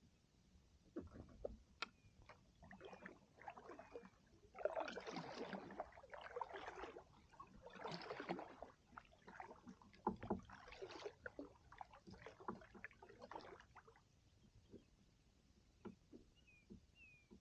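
Double-bladed kayak paddle strokes in calm water: a run of irregular splashy dips and pulls with drips and a few sharp clicks, stopping a few seconds before the end.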